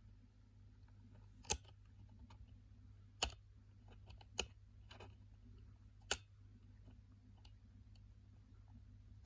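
Number wheels of a combination key lock box clicking as one is turned by hand while the release bar is held under tension, decoding the code by feel: four sharp clicks with a fainter one among them, spaced roughly a second apart, over a faint low hum.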